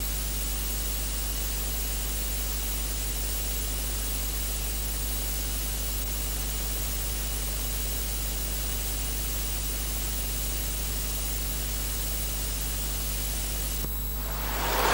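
Steady hiss with a low hum underneath and no other sound, the noise floor of an old film-to-video transfer. Just before the end the hiss thins and a louder rushing noise begins to rise.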